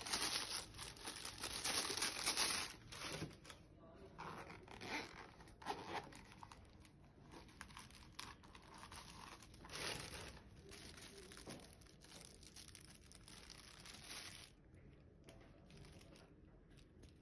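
Plastic sleeve and bubble-wrap packaging crinkling and rustling as it is handled and pulled off, loudest in the first few seconds, then softer intermittent rustling.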